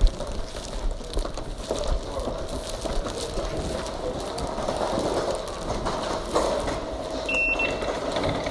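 Station ticket gate's contactless card reader giving a single short, high beep as a card is tapped on it, near the end, over steady background noise.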